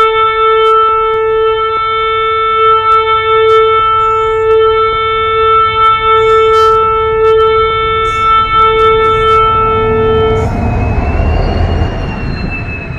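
Diesel locomotive's air horn sounding one long, steady blast as the train approaches; it cuts off about ten seconds in. The train then passes close by with a rumble of wheels and a thin, wavering high whine.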